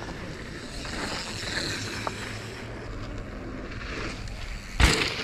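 Mountain bikes riding a dirt dual slalom track: a steady rush of wind and tyre noise with a low hum under it, and one loud thump near the end.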